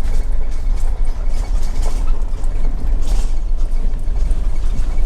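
Vehicle driving slowly over a bumpy, deteriorating dirt track: a steady low rumble with irregular knocks and rattles as it goes over the bumps.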